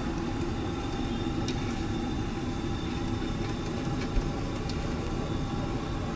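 Steady low rumble of street and traffic noise, with a few faint clicks and one sharper knock about four seconds in from utensils and plates being handled.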